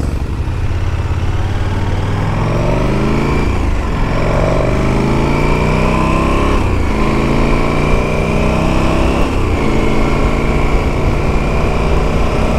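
KTM 1290 Super Adventure S's V-twin engine accelerating through the gears. Its pitch climbs in each gear and drops at the three upshifts, about four, seven and nine and a half seconds in.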